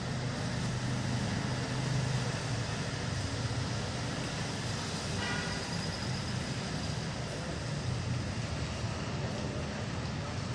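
Steady outdoor city background noise: a low motor rumble under an even hiss, with a brief faint higher tone about five seconds in.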